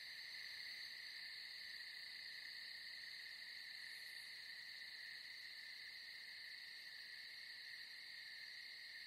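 Faint, steady chorus of night crickets: a continuous high-pitched chirring that does not break.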